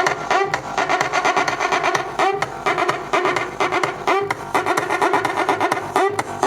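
Music with a fast, steady beat and repeating pitched figures, played loud through a car's aftermarket sound system of amplifiers, a subwoofer, horn drivers and tweeters.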